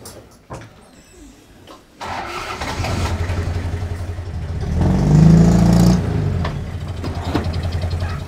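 Toyota pickup truck's engine starting about two seconds in, revving up briefly about halfway through, then idling steadily.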